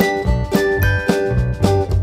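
Background music: a light plucked-string tune, about four notes a second, over a steady bass line.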